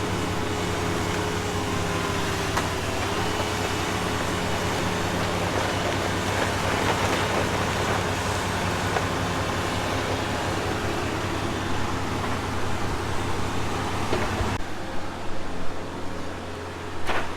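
An engine running steadily at a constant speed, a low even hum with a noisy wash over it. Near the end the sound changes abruptly, with less hiss.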